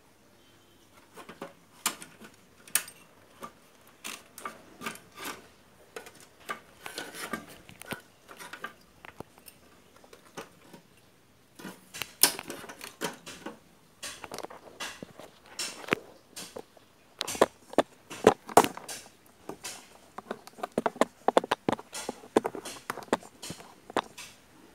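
Irregular clicks, taps and light knocks from hands handling a CRT television's circuit board and its parts. The clicks start about a second in, pause briefly near the middle, then come thicker and louder.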